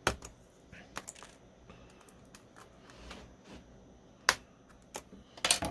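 Sharp clicks and snaps of a laptop keyboard being pried at and handled: a few scattered clicks, the loudest about four seconds in, and a quick cluster near the end.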